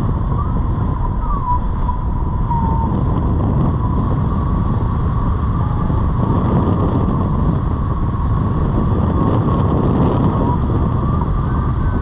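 Wind rushing over a hang glider's wing-mounted camera microphone in flight: loud, steady wind noise, with a thin whistle above it that wavers slightly in pitch.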